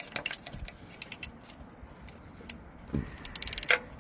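Ratchet and 24 mm socket clicking and clinking as they are fitted and worked on the engine's oil pressure sensor, with a short burst of clicks at the start and a quicker run of clicks near the end.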